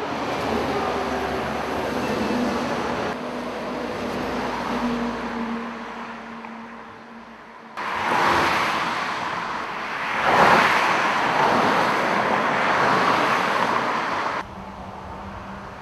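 Road traffic on a multi-lane road: vehicles driving past, with the loudest pass swelling and fading about ten seconds in. The sound changes abruptly three times as the recording cuts between takes.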